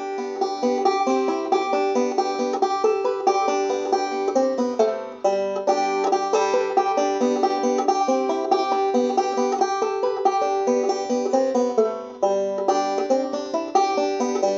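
Instrumental background music with a fast-picked banjo in a bluegrass style: a quick run of plucked notes with two short breaks in the phrasing.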